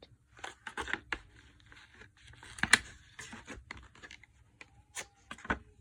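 Stylus packaging being handled and opened: a string of irregular clicks and taps with brief crinkling, the loudest a sharp snap a little under three seconds in.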